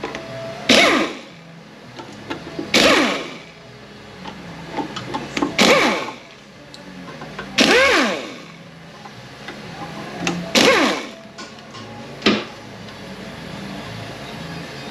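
Cordless power driver spinning out the T30 Torx bolts of a 9T65E transmission's oil pump: about six short bursts, each whining up and back down in pitch, a couple of seconds apart.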